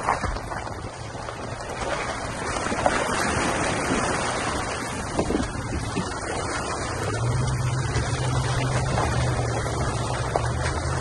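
First-generation Toyota Tundra driving off-road: a steady engine hum under a wash of tyre and trail noise, with a few short knocks from bumps. The engine hum grows stronger about seven seconds in.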